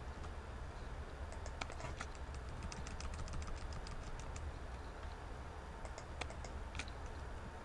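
Computer keyboard keys tapped in a quick run of clicks for a few seconds, then a few more separate taps near the end, over a low steady hum. This is the sound of editing work on the computer.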